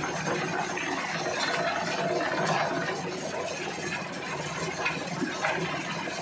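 Electric-motor-driven manure grinder running steadily while fermented goat manure is fed in: a constant hum with rattling and a few scattered clicks from the material passing through the mill.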